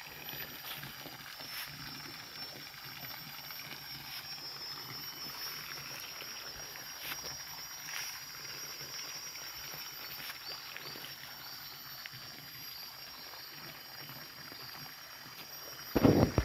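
Steady high-pitched insect chorus, with faint ticks scattered through it and a short loud thump near the end.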